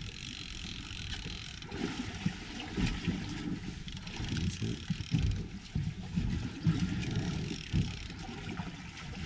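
Wind buffeting the microphone on a boat drifting on open water, with irregular low knocks.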